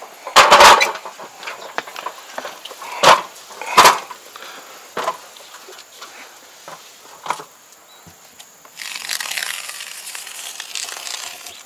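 Several sharp knocks and clatters, the loudest about half a second in and two more around three to four seconds. From about nine seconds on comes a steady hiss, typical of a foam gun dispensing expanding polyurethane foam into the gap around a door frame.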